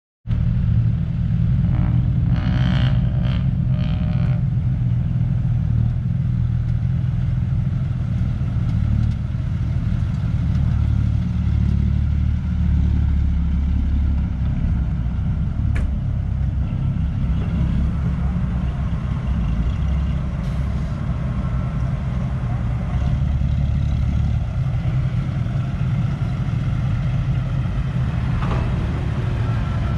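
Heavy diesel engines of a Komatsu excavator and a six-wheel dump truck running steadily with a low rumble, the engine note shifting a little as the machines work.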